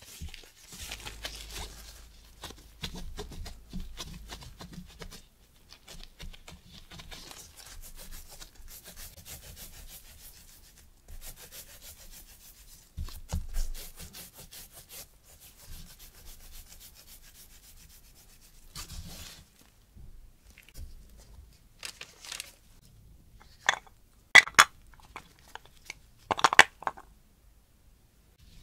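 Disposable plastic gloves rustling and rubbing against a ball of whole wheat dough as it is rolled and shaped by hand on a mat. A few sharp knocks near the end are the loudest sounds.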